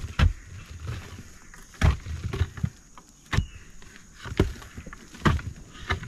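A hand tool digging into the earth of an animal burrow: about six uneven strokes, each a dull thud, with scraping of soil between them.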